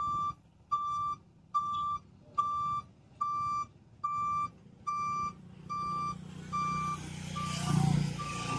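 A lorry's reversing alarm beeps steadily, about five beeps every four seconds, while the truck backs up, over the low running of its diesel engine. Near the end a louder hiss and engine swell rise over the beeps.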